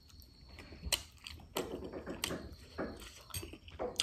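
Close-up eating sounds: a mouthful of spicy instant noodles being chewed, with a few short sharp clicks.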